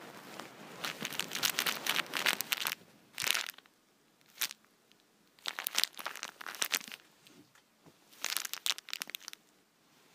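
Crunching sound effect of an animated marmot chewing on something small and crunchy, in five bursts of dense crackling with short quiet gaps, the longest burst starting about a second in.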